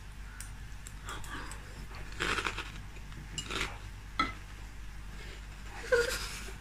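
Metal spoons clinking and scraping in bowls of crunchy cereal balls, with a few short bursts of crunching and a sharp click a little after four seconds in.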